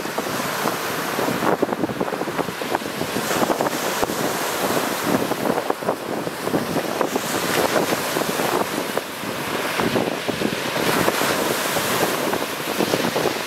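Lake Superior surf breaking continuously on a pebble and rock beach, with wind buffeting the microphone.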